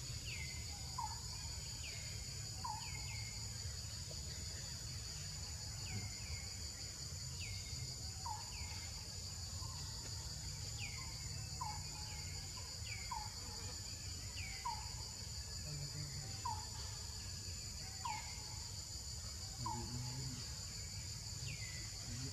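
Forest ambience: a steady high-pitched insect drone, with a bird repeating a short falling call about once a second and a low rumble underneath.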